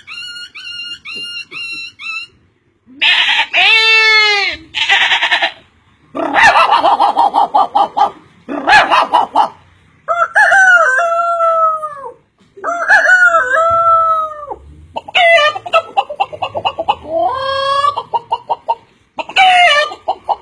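Chickens calling: a rooster crowing several times, with clucking, in a series of separate calls broken by short gaps. It opens with a quick run of short rising chirps.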